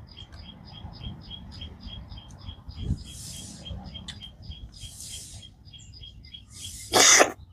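A bird chirps steadily in short, evenly spaced notes, about four to five a second. Over it come a few soft hissy sucking sounds from a person eating snails, then a loud slurp near the end.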